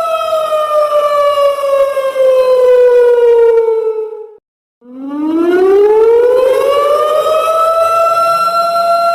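Simulated siren alarm sounding a slow wail. The tone slides slowly down in pitch for about four seconds and cuts out briefly near the middle. It then sweeps back up from low and levels off at its steady high pitch.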